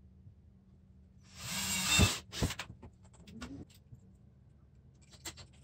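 Workshop handling sounds: a short rising rush of noise ending in a sharp knock about two seconds in, then a few light clicks, with quiet room tone around them.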